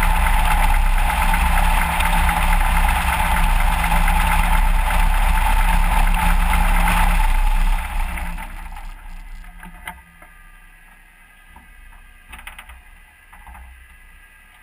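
Light aircraft's propeller engine idling steadily, then shut down about eight seconds in and running down to a stop over a couple of seconds. A few faint clicks and knocks follow.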